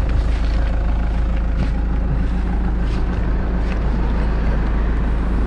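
Steady low rumble of a moving vehicle: engine and road noise with wind on the microphone.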